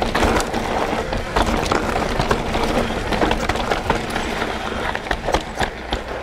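Mountain bike rolling fast down a loose gravel and dirt trail: knobbly tyres crunching over stones, with frequent sharp rattles and knocks from the bike over bumps.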